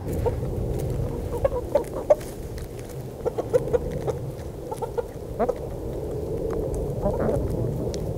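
Backyard chickens clucking in short, scattered calls as they crowd a hand and peck greens from it.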